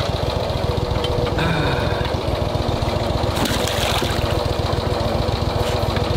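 Boat motor idling with a steady, rapid chug. About three and a half seconds in, water splashes briefly as a hooked alligator gar thrashes against the side of the boat.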